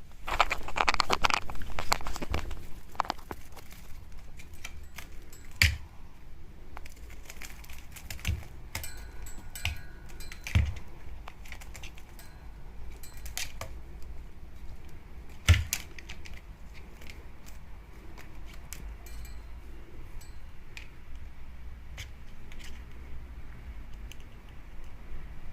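Rustling and crinkling of a dragonfly cat teaser toy being played with, loudest in the first two or three seconds, followed by scattered light knocks and clicks.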